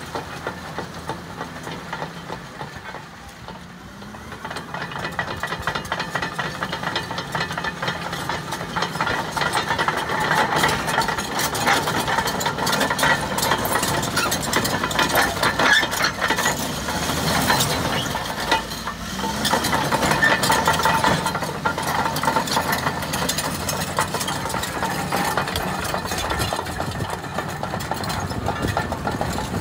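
Caterpillar D6M crawler dozer's diesel engine running while its steel tracks clatter and crunch over crushed stone. The rattle dips briefly a few seconds in, then grows louder and stays dense.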